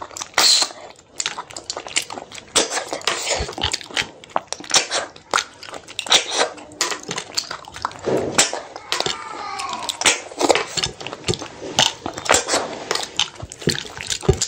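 Close-miked eating sounds: wet lip smacks, chewing and sucking as snails, fish and rice are eaten by hand, a quick irregular run of sharp smacks and clicks.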